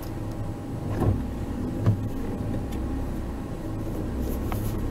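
Car cabin noise heard from inside a car being driven: a steady low engine and road rumble, with a couple of soft knocks about one and two seconds in.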